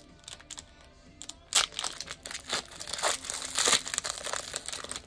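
Plastic-foil wrapper of an Upper Deck hockey card pack being torn open and crinkled by hand, in a run of crackling rustles. It is loudest about a second and a half in and again a little after three seconds.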